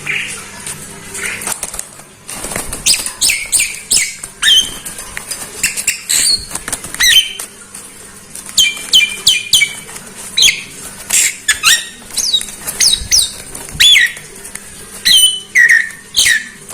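Javan myna (jalak kebo) calling: a quick run of sharp, gliding whistles and squeaky chatter, growing loud and dense about two seconds in.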